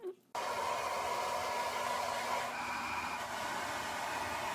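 A steady whooshing machine noise with a faint held hum, starting suddenly a moment in and running evenly without change.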